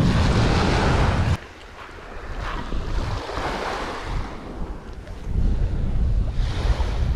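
Wind buffeting the microphone with a heavy low rumble that cuts off abruptly about a second and a half in and comes back near the end, over small waves washing on a pebbly beach.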